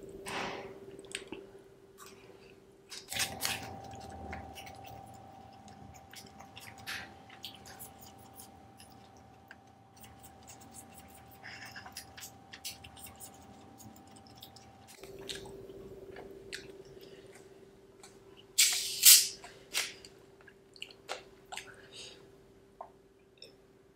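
Close-miked chewing and wet mouth clicks from someone eating very spicy Schezwan fried rice, over a faint steady hum. A short, loud hiss of noise comes about three-quarters of the way through.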